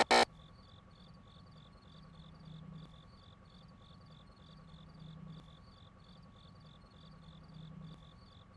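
Outro music cuts off at the very start, leaving faint crickets chirping in a steady rhythm, about two or three chirps a second, over a low hum that swells and fades about every two and a half seconds.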